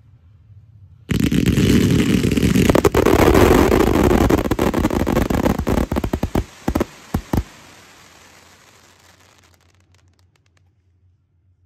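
Fireworks going off. A sudden dense barrage of bangs and crackling starts about a second in, thins to a few separate sharp cracks a little past halfway, and dies away.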